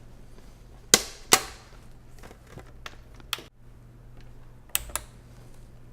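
Plastic laptop screen bezel being pried off by hand, its clips snapping loose: two sharp snaps about a second in, lighter clicks after, and two more snaps near the end.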